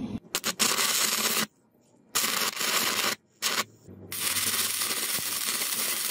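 Stick arc welding on rusty steel: the electrode's arc hissing and crackling in about five bursts as it is struck and broken off again. The bursts are separated by short silent gaps, and the last and longest runs about two seconds.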